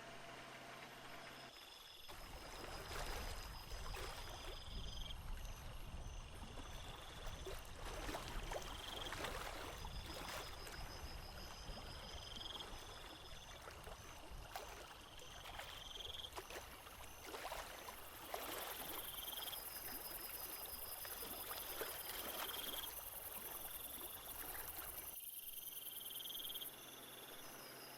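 Chirping and trilling animal calls: a short rising chirp repeats about every two seconds over steady high trills. A rough, gusty noise comes in about two seconds in and drops away near the end.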